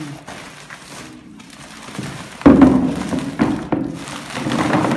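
Carrots tipped out of a plastic sack into a plastic tub: a sudden heavy thump about halfway through, then a run of knocks as they tumble and settle, with the sack rustling.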